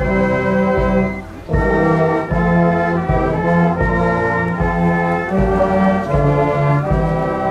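Brass and drum band playing a slow piece in long held chords, with a short break between phrases about a second in.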